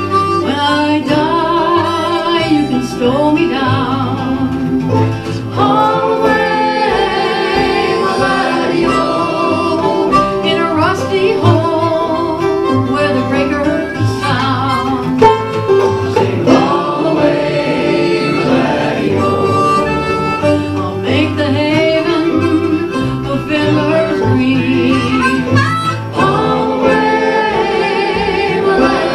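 Acoustic folk music with guitar accompaniment under a wavering lead melody line, played loud and steady.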